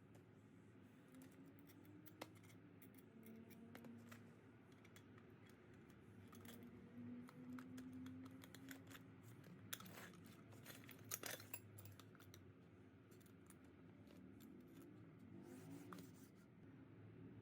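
Faint scattered clicks and taps of small hard objects being handled, with a cluster of louder clicks about ten to eleven seconds in.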